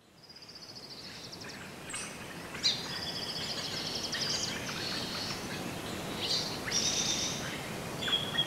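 Forest ambience fading in: several birds singing and calling, with rapid high trills and short chirps over a steady background hiss.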